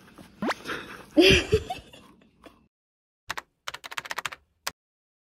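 A quick run of about a dozen keyboard-typing clicks from about three seconds in, a typing sound effect for on-screen text being typed out. Before it, about a second in, a short rising sweep and a brief vocal-like sound, the loudest part.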